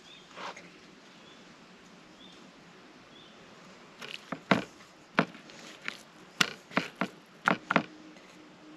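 Pieces of raw meat being handled and set down on a wooden cutting board: a quick run of about a dozen sharp slaps and knocks in the second half. Faint bird chirps come before them.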